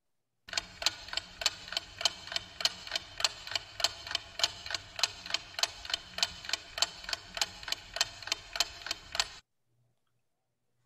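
Steady, even ticking, about three ticks a second, from a promo video's soundtrack played over a video call; it stops abruptly about a second and a half before the end.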